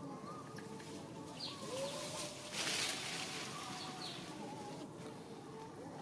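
Wild birds calling: short high chirps repeating every second or so over softer wavering whistles. About two and a half seconds in there is a brief burst of rustling noise, the loudest moment.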